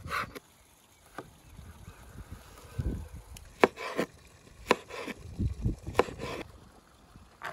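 Chef's knife chopping peppers on a wooden cutting board: sharp knocks of the blade hitting the board, irregularly spaced, one at the very start and a run of them from about three seconds in.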